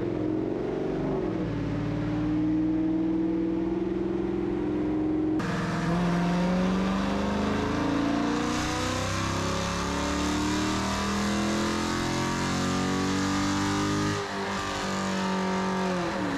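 A car engine running hard and revving, with the sound changing abruptly about five seconds in.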